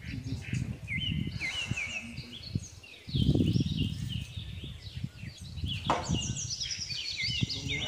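Small birds chirping, many short high notes repeated and overlapping, over a low rumbling noise that swells for about a second about three seconds in.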